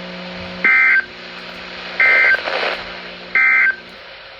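Emergency Alert System end-of-message signal: three short, loud bursts of two-tone digital data, evenly spaced about a second and a half apart, closing a weather radio severe thunderstorm warning. A steady low hum runs underneath and cuts off near the end.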